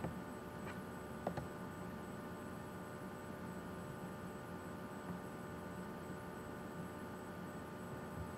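Steady electrical hum, with three sharp clicks in the first second and a half from a computer mouse.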